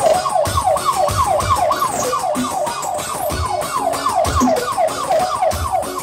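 Electronic dance music blasting from a large carnival sound system: a siren-like synth repeating quick falling sweeps, about three a second, over a thumping kick drum.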